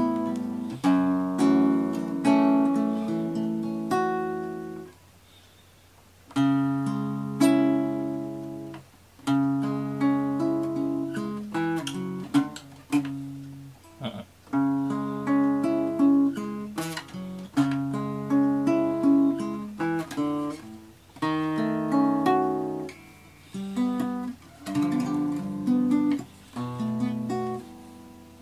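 Acoustic guitar music: plucked notes and chords, each starting sharply and fading, with a brief pause about five seconds in.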